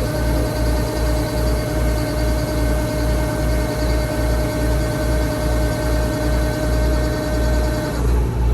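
Kubota rice combine harvester running, with a steady whine over a low, even throb about three times a second. The whine stops shortly before the end.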